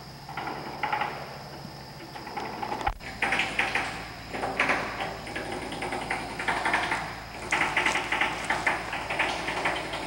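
Hammering and chipping of dried concrete off concrete mixer trucks' drums: irregular bursts of rapid clattering impacts, growing denser and louder after a cut about three seconds in.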